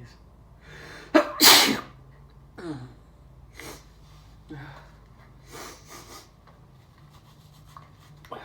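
One loud, sudden sneeze from a man, about a second in, brought on by snorted Chhinkni sneezing powder. It is followed by a short voiced exhale that falls in pitch and several quieter breaths.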